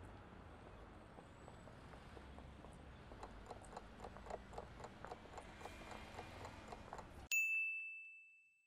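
Faint clock ticking at about four ticks a second as a quiz countdown runs out. About seven seconds in, a single bright bell ding rings out and fades over about a second, signalling that time is up.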